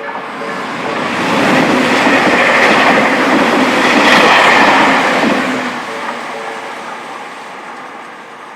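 Tobu Nikko Line train passing over a level crossing, its wheels clattering on the rails. The sound swells about a second in, is loudest in the middle and fades away near the end. The crossing's warning bell rings in even repeats at the start and comes back faintly as the train goes.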